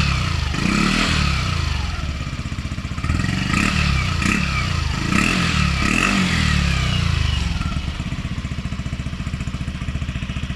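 Yamaha Aerox scooter's single-cylinder engine breathing through an RS8 'silent killer' aftermarket exhaust with a stainless tube, revved in several throttle blips that rise and fall in pitch, then settling to a steady idle for the last few seconds. When revved the pipe is a little louder than the stock exhaust.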